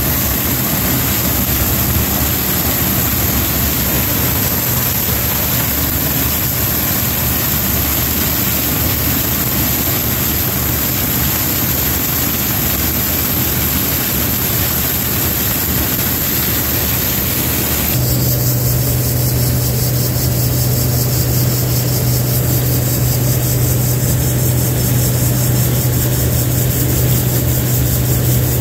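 Combine harvester's diesel engine and machinery running steadily under harvest load. About two-thirds of the way through the sound changes abruptly: the hiss falls away and a low hum stands out.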